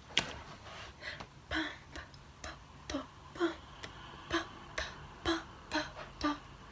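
Finger snapping in a steady rhythm, about two snaps a second.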